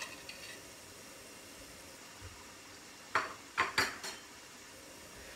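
Liver, onion and carrot stewing in a lidded frying pan over a low gas flame, sizzling faintly and steadily. About three seconds in there is a quick run of about four sharp clinks, like crockery or a utensil knocking.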